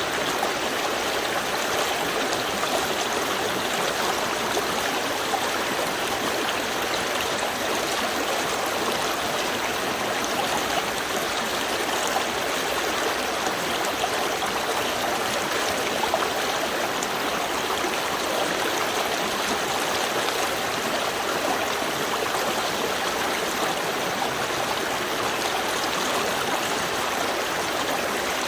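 Small river stream flowing steadily, with an even rushing and gurgling of water over stones.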